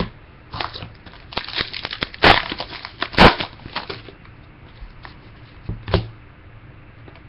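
Crinkling and crackling of a football trading-card pack wrapper and cards being handled, in irregular short crackles, the two loudest about two and three seconds in.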